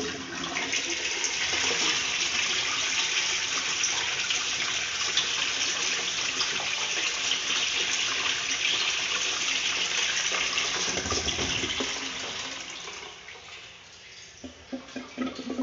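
TOTO wall-hung toilet with a sensor flush valve flushing: a steady rush of water through the bowl for about twelve seconds, fading away, then a few light clicks near the end.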